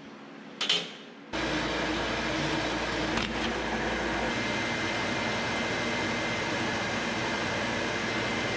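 A sharp click about a second in, then from about a second and a half in a buckle-plate paper folding machine running steadily as it folds sheets out onto its delivery belt, with a faint steady whine.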